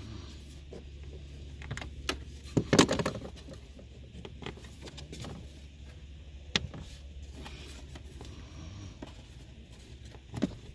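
Hands handling and pushing new fuel tubing onto a diesel heater's fuel line fitting: scattered clicks and knocks, loudest about three seconds in, over a steady low hum.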